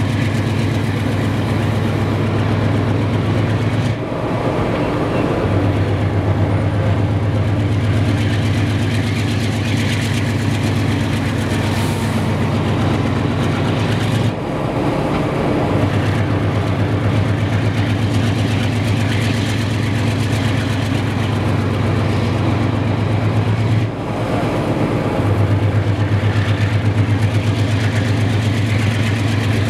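Diesel locomotive engine running under heavy load with a steady low drone. The drone dips briefly three times, about ten seconds apart.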